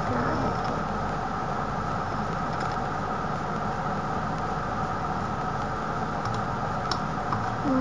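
Steady whirring hum and hiss of a computer fan, with a couple of faint clicks near the end.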